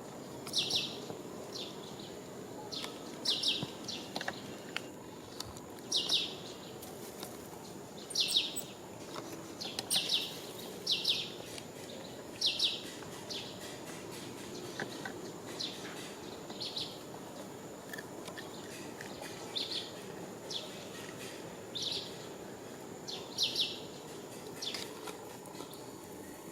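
Short, high-pitched chirps from an animal, each sliding down in pitch, repeated irregularly every second or two and sometimes in quick pairs, over a steady outdoor hiss with a thin constant high tone.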